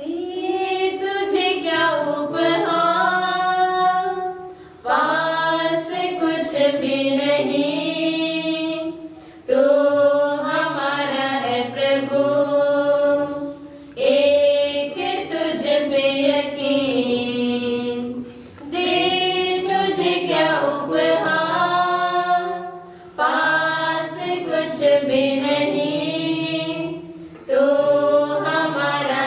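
Church singers singing a hymn in phrases of about four to five seconds, with a brief pause between phrases and low sustained notes underneath.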